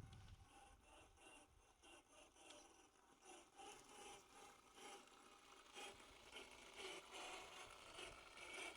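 Near silence with faint, irregular scraping and rustling, and a low thump at the very start.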